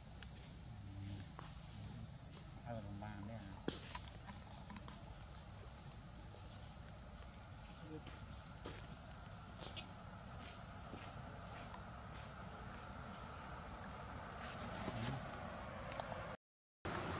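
Steady chorus of insects, two high-pitched continuous buzzing tones, with a single click about four seconds in and a short dropout to silence near the end.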